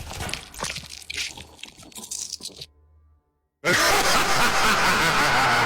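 Gore sound effects: dense wet crackling and squelching that fades away, a second of silence, then a sudden loud rushing hiss starts about three and a half seconds in and holds steady.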